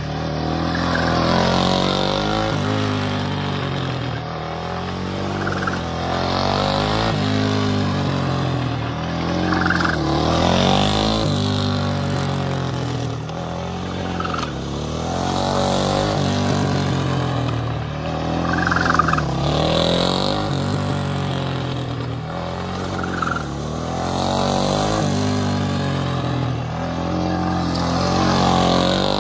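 Race motorcycle engine running as the bike laps in tight leaned circles. Its pitch rises and falls, and it swells louder every four or five seconds as it sweeps past and away.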